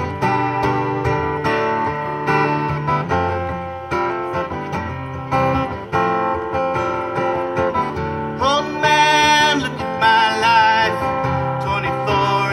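Acoustic guitar strummed and picked, amplified through the stage PA. A singing voice with a wavering vibrato comes in over it about eight and a half seconds in.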